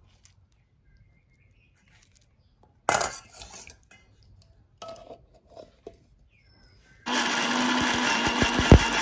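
An electric mixer grinder switches on about seven seconds in and runs steadily, grinding cut guava into a pulp. Before it, a short metallic clatter in a steel bowl about three seconds in, then a few light clinks.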